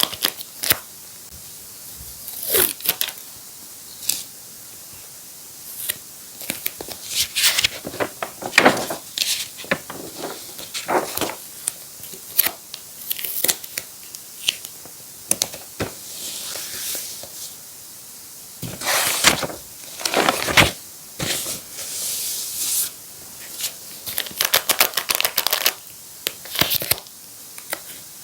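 Paper being handled, crinkled and torn in short, irregular bursts.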